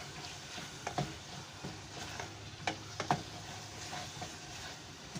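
Onion and chicken giblets sizzling in oil in a pot as they sauté, with a few sharp knocks against the pot.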